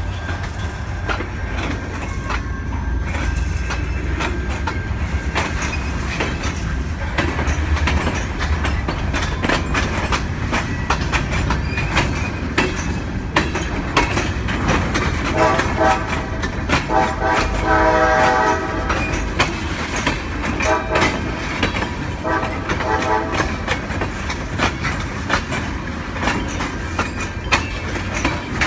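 CSX EMD SD40-3 diesel locomotive and its train rolling by, with a low engine rumble and wheels clicking steadily over the rail joints. The locomotive's horn sounds in several blasts a little past halfway through, with one more a few seconds later.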